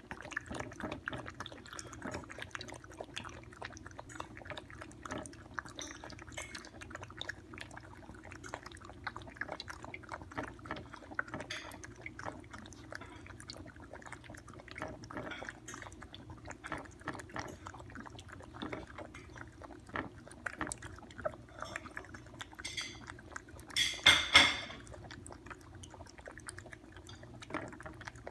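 Two toy poodles lapping milk from a plastic bowl: a steady run of quick, wet licking clicks. A brief, much louder burst of noise comes about three-quarters of the way through.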